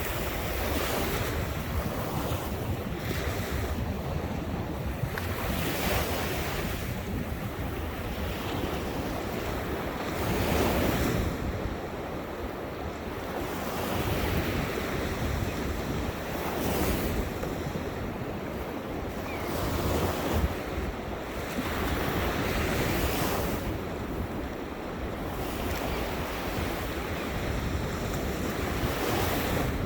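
Ocean waves breaking and washing on the shore, swelling and fading every few seconds, with wind buffeting the microphone.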